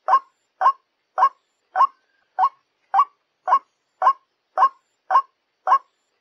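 White-breasted waterhen (ruak-ruak) call used as a trapping lure: one harsh note repeated evenly, a little under two a second.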